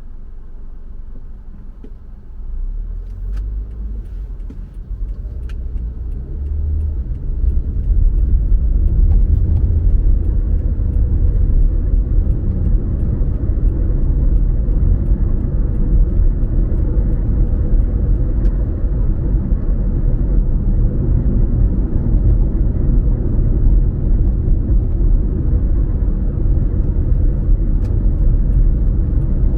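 Deep, steady rumble of a car driving on the road, with engine and tyre noise. It grows louder over the first several seconds, then holds steady, with a few faint ticks.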